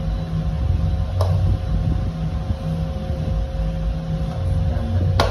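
Steady low machine hum with a rumble, with two sharp clicks, one about a second in and one near the end.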